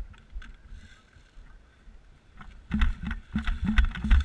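Footsteps and jostling gear of a player moving on foot, picked up by a body-worn camera: soft, steady footfalls at first, then louder, heavier thuds and rattling knocks for the last second and a half.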